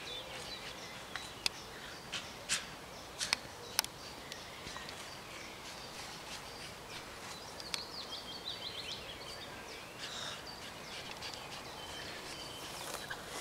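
Outdoor ambience with small birds chirping in short high calls, and a few sharp clicks in the first four seconds.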